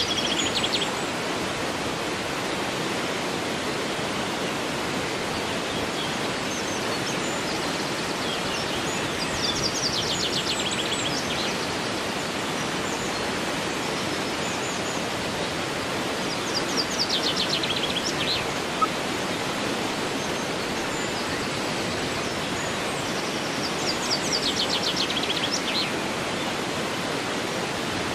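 Steady rushing of a flowing river, with a waterfall further off. A songbird sings a short, rapid trilled phrase four times, roughly every eight seconds.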